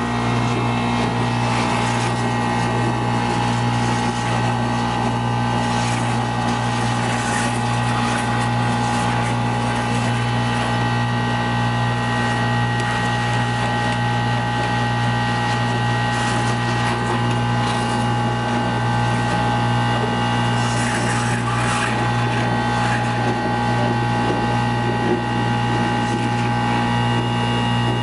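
Industrial vacuum running steadily at full suction with a strong hum, its 1-1/2 inch hose wand drawing Portland cement powder out of a steel drum. A few brief rushes of noise come as the wand gulps in material.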